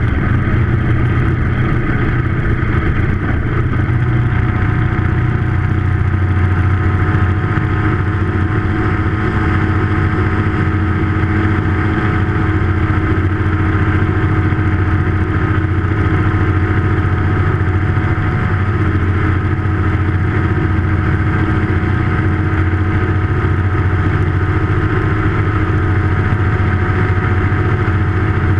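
Ultralight aircraft's propeller engine running steadily at takeoff power through the ground roll and climb-out, a constant loud drone with a new steady tone joining about four seconds in.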